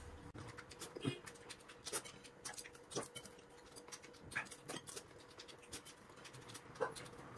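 A man eating close up: scattered chewing and mouth noises on crisp fried food, with small clicks of chopsticks against a porcelain bowl, over a faint steady hum.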